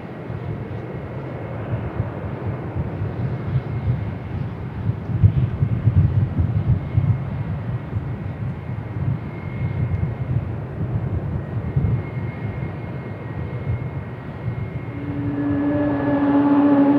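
Jet engines of an Airbus A320-200 running as it taxis, a low, uneven rumble. About fifteen seconds in, it gives way to the whine of a Boeing 737 MAX 9's engines, with clear steady tones that rise slightly.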